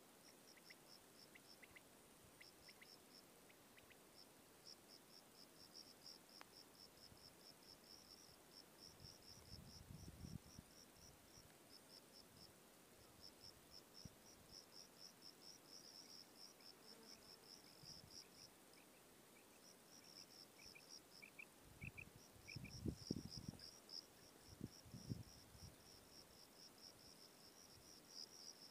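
Faint cricket-like insect chirping: quick trains of high pulses in runs with short gaps. A few faint, short, lower call notes come in small groups early on and again past the middle, and low rumbling thumps come about ten seconds in and again near the end.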